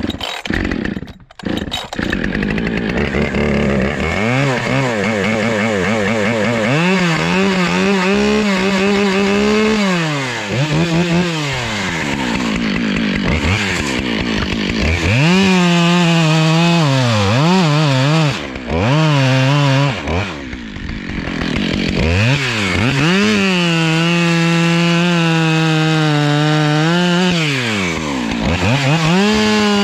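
Husqvarna 572XP two-stroke chainsaw starting up about two seconds in, then revving up and down and running at full throttle in long stretches as it cuts into a tree trunk.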